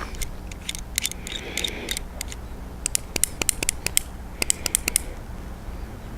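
Black Diamond mini screw-gate carabiner being handled: a string of sharp little metal clicks in irregular clusters as its spring-loaded gate snaps open and shut.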